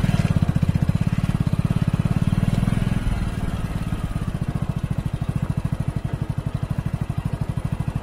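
A vehicle's engine running at low revs: a steady chugging beat of about ten pulses a second, easing off a little about three seconds in.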